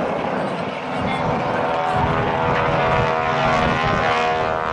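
Stinson Reliant's radial engine and propeller running as the aircraft passes in its display, the sound growing louder about a second in and holding a steady pitched note.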